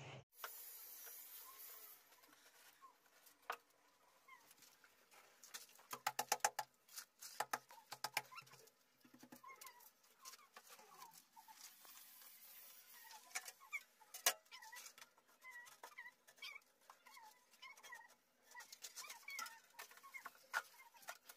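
Faint birds chirping, with scattered clicks and knocks from tile-setting work: a quick run of taps about six seconds in and a sharp knock around fourteen seconds in.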